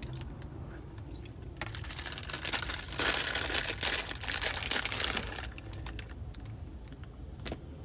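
Aluminium foil wrapper crinkling and rustling in irregular bursts as it is handled and opened, with fine crackly clicks; loudest about three seconds in.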